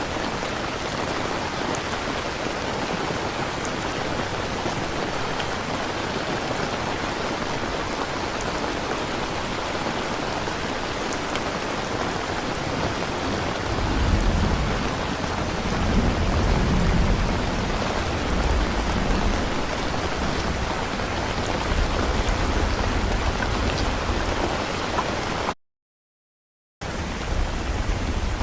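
Steady rain falling, with low rolling thunder coming in about halfway and rumbling for several seconds. Near the end the sound cuts out to silence for about a second, then the rain resumes.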